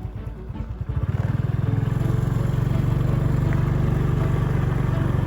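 A small engine running steadily with a fast, even low beat, growing louder about a second in and holding there.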